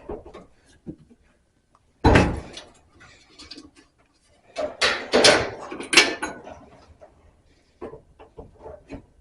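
Sheet-metal dryer parts being knocked and shifted into place during reassembly: one loud thump about two seconds in, then a cluster of knocks and rattles around five to six seconds, and a few light clicks near the end.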